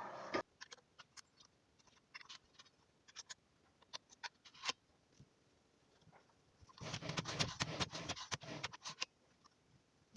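Faint scattered clicks and taps of small parts being handled, with a denser stretch of rattling and scraping about seven seconds in that lasts around two seconds.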